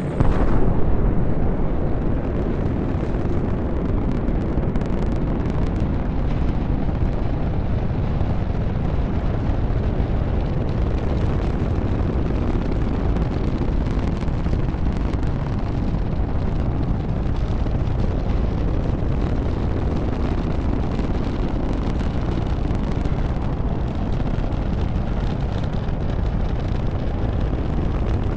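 Space Shuttle solid rocket booster firing, heard from a camera mounted on the booster. The noise grows suddenly louder just after the start as the vehicle lifts off. It then holds as a steady, dense roar during the climb.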